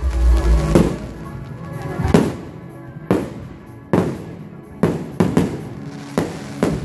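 Fireworks shells bursting aerially: a string of about nine sharp bangs at uneven spacing, several in quick succession around five seconds in, over steady music.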